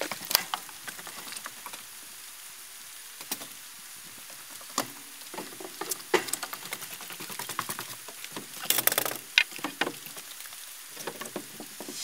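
Quiet outdoor background hiss with scattered light clicks and knocks, and a short burst of clustered clicks about nine seconds in.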